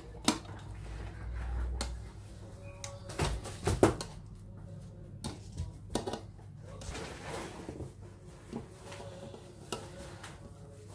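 A spoon clicking and knocking against a glass baking dish as cooked fusilli is spooned onto béchamel sauce, in scattered taps with the loudest pair a little over three seconds in. A low steady hum runs underneath.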